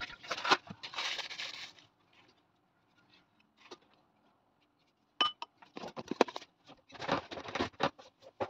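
A short rustle as brown sugar is added to a glass bowl of sauce, then, after a pause, a sharp ringing clink and a few quick clatters of a metal measuring spoon against the glass bowl.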